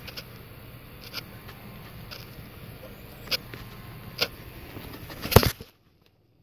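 Light clicks and taps of a smartphone being handled, about one a second, over a steady low hum, with a louder clatter about five seconds in; the sound then cuts out abruptly.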